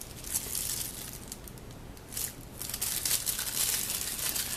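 Packaging being handled and opened by hand: crinkling and tearing rustles in several bursts, busiest in the second half.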